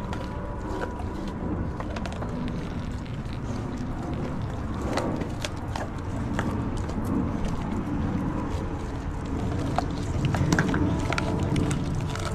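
Dogs chewing whole raw fish: irregular crunching clicks of teeth on flesh and bone.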